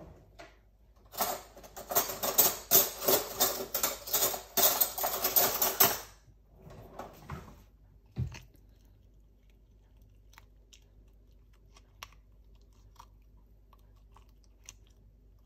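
A small metal spoon scraping and digging around the stone of a peeled peach: a run of rapid, scratchy clicks lasting about five seconds. A single knock follows, then a few faint ticks as the scooping goes on.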